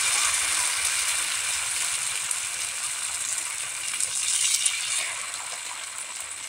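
Thin rice batter for chilka roti sizzling on a hot oiled tawa: a steady hiss that slowly dies down as the batter starts to set.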